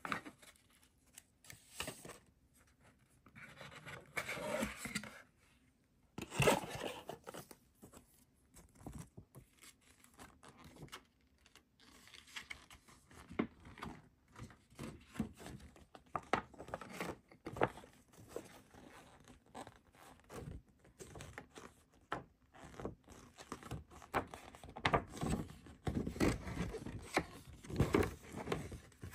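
A CD album's paper and plastic packaging handled by hand: irregular rustling, scraping and light tapping, with a sharper scrape or tear about six seconds in.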